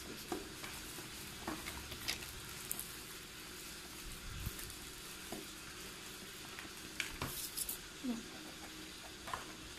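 Faint, scattered rustling, crackling and light taps as a cardboard Beyblade box with a clear plastic window is handled and turned over in the hands.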